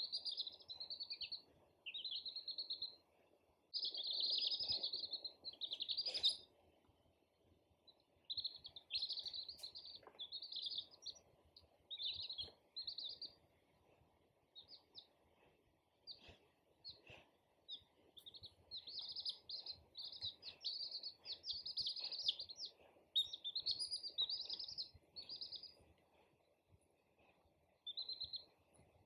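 A brood of baby chicks peeping: quick runs of short, high chirps in bursts of a second or two, with brief quieter gaps between them.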